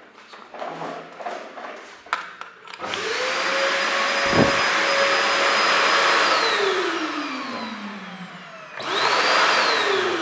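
Bagged vacuum cleaner with a newly fitted motor being test-run: a few handling clicks, then it is switched on and the motor spins up to a steady whine, runs a few seconds, is switched off and winds down with a falling whine, and is switched on again near the end. It runs normally, the motor replacement having cured the howling and loss of suction.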